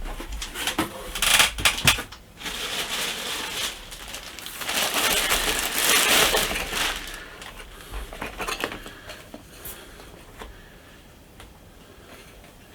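Packaging rustling and crinkling as a mask is unwrapped and pulled from its shipping box, with scattered clicks and knocks. The loudest rustling comes about five to seven seconds in, then it fades to faint handling.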